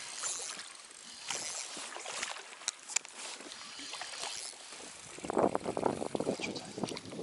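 Soft water sounds and small knocks around an inflatable boat while a hooked fish is played on a bent spinning rod, with a burst of jacket-sleeve fabric rustling against the microphone about five seconds in.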